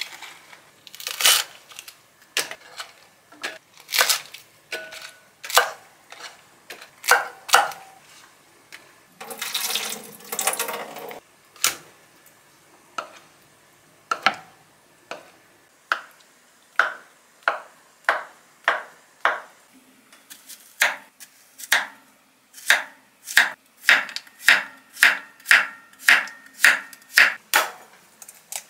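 Kitchen knife striking a wooden cutting board: scattered single cuts, a two-second rush of noise about ten seconds in, then from about twenty seconds in a steady run of slices, about two a second, through a zucchini.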